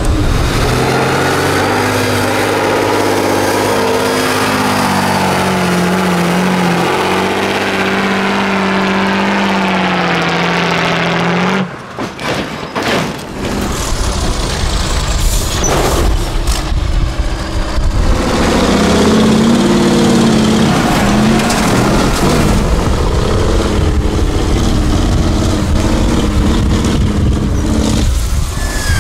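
Diesel engines of 8x8 off-road trial trucks working hard and revving up and down as the trucks climb over dirt obstacles. The engine sound drops away briefly about twelve seconds in, with a few knocks, then picks up again.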